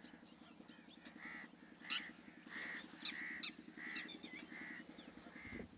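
Birds calling: a run of short repeated calls, roughly one every half second to second, with quick high chirps from other birds between them, over a steady low hum.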